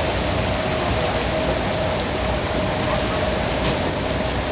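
A passenger boat's engine running steadily under way, with a constant hum over a steady rush of water along the hull.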